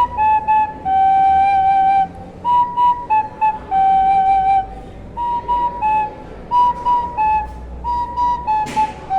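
Soprano recorder playing a slow three-note melody on B, A and G. The notes are tongued separately with short gaps, and a few are held longer.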